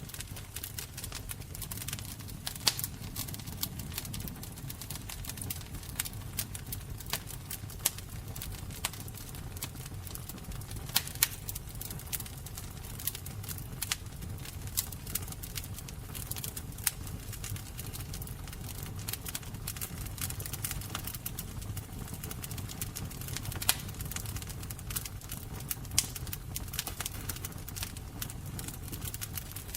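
Fire crackling: irregular sharp pops and snaps, a few much louder than the rest, over a steady low rumble of the flames.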